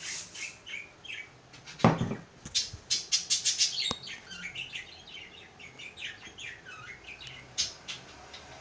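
Short hisses of an aerosol spray can, with one loud thud about two seconds in and a run of quick, high, falling chirps through the middle.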